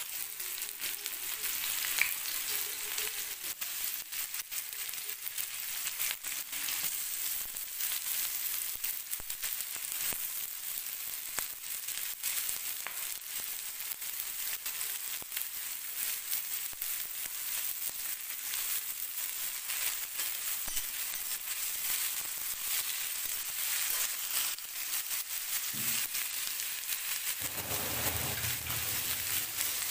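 Sliced onions and green chillies sizzling in hot oil in a metal kadai, with a metal spatula stirring and scraping against the pan now and then. A sharp clink sounds about two seconds in.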